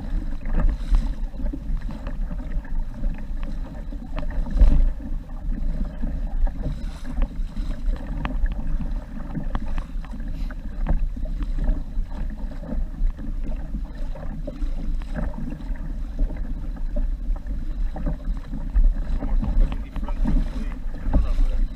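Water lapping and slapping against a kayak's hull as it rides a light chop, over a steady low rumble of wind on the microphone. A louder knock or splash comes about four and a half seconds in.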